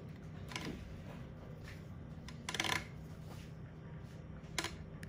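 Small metal extraction tools clinking: a light click, then a brief rattling clatter about halfway through, and one more sharp click near the end, over a steady low hum.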